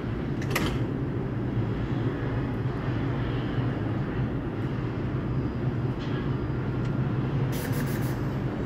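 R142 subway train standing at the station with a steady low hum, a sharp click about half a second in, and a short burst of clicks near the end.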